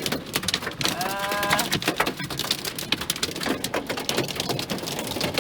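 Large hail and heavy rain pelting down: a dense, rapid clatter of hailstones striking hard surfaces. A short steady tone sounds briefly about a second in.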